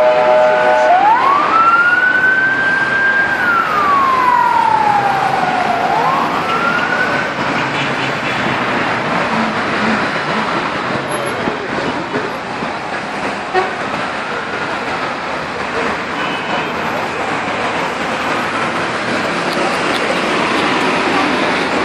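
An emergency vehicle's siren wailing: about a second in it rises, holds, falls slowly and starts to rise again before fading. A fainter sweep follows later, all over steady, loud traffic noise.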